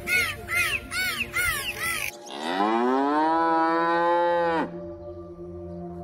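A run of short rising-and-falling animal calls, about three a second, for the first two seconds, then a single cow moo lasting about two and a half seconds that climbs in pitch at its start and drops off sharply at its end. A faint steady drone lies underneath.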